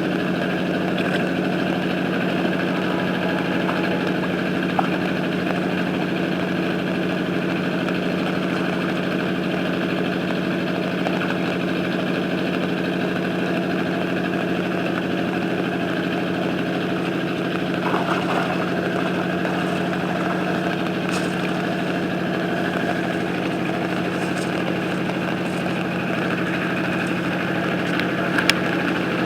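A small engine running steadily at one unchanging speed, with a few brief clicks or knocks over it.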